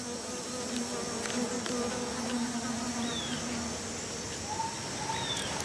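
Stingless bees buzzing at their nest, a steady hum that fades out about two-thirds of the way through. A few short falling whistles sound over steady high-pitched forest insect noise.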